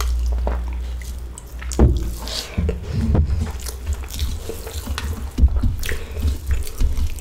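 Close-up eating sounds: a drink of water from a steel tumbler at the start, then wet squelching and clicking as a hand mixes and squeezes rice with potato fry on a steel plate, along with chewing.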